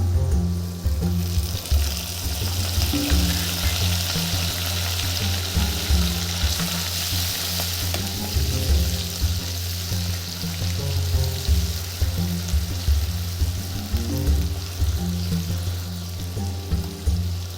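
Food frying in hot oil in a pan, a steady sizzle that swells about a second in and eases near the end, with background music underneath.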